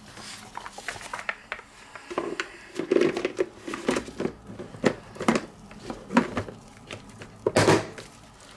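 Plastic salad spinner being handled as its lid is fitted onto the bowl, giving a run of irregular plastic clicks, knocks and rattles.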